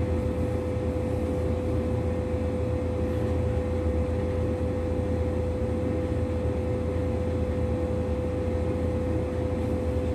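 Steady machinery hum: a constant low rumble with a single steady mid-pitched tone above it.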